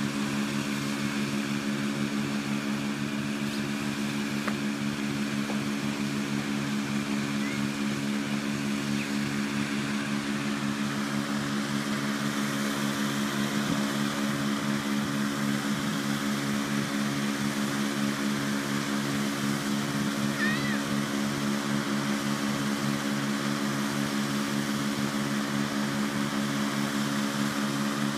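Engine-driven inflator fan running steadily at constant speed, blowing cold air into a hot air balloon envelope during cold inflation.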